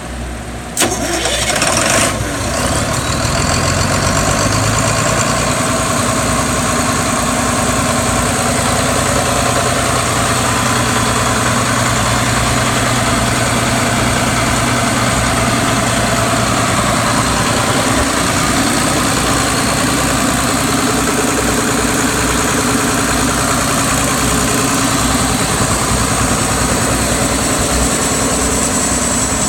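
Northern Lights M6108 marine diesel generator starting: a brief quieter start, then the engine catches with a sudden jump in level about a second in and settles into a steady run.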